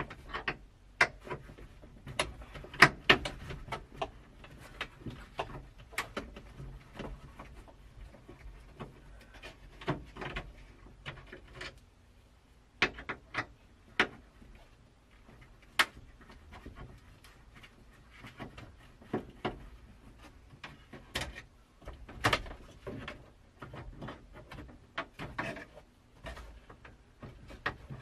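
Irregular clicks, taps and knocks of hands working at a pickup's plastic glove box: handling the glove box and fiddling with its mounting screws to get it out.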